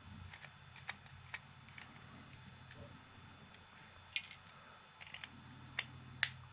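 Scattered small plastic clicks and taps from handling an Xbox Series controller being taken apart, with two sharper clicks near the end, over a faint low hum.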